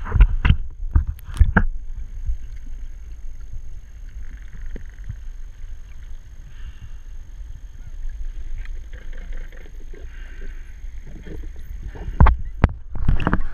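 Underwater sound through an action camera's waterproof housing on a hand-held pole: a steady low rumble of moving water. There are sharp knocks in the first couple of seconds and again near the end, from the camera pole being handled.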